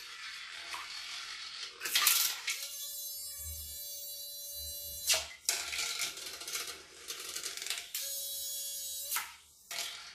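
A 3D-printed RC torpedo's 6 mm micro motor whining steadily, twice for a couple of seconds each, while water splashes and churns around it in a filled sink.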